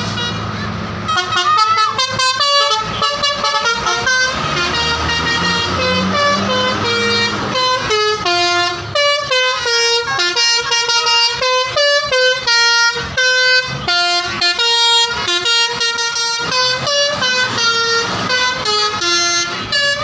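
Tour bus telolet horns playing a fast tune of stepped, held notes, starting about a second in, over engine rumble in the first few seconds.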